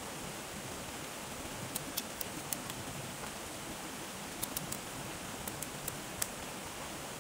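A small kindling fire crackling: about a dozen sharp, high-pitched pops in three clusters, over a steady rush of flowing water.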